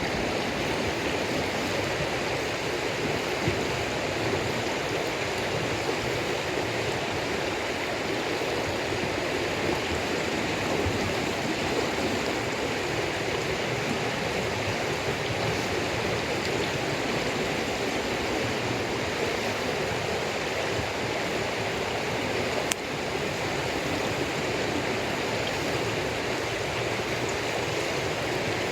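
Steady rushing of running water, even throughout, with one sharp snap about 23 seconds in.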